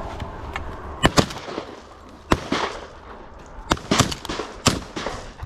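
A series of about eight sharp, short cracks at irregular intervals, some coming in quick pairs, over a faint steady hiss.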